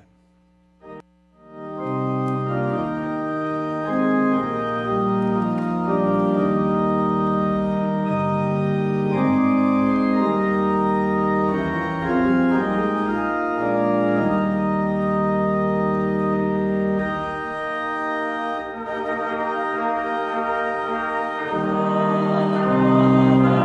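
Church organ playing a hymn introduction in sustained, held chords, starting about a second and a half in after a short pause.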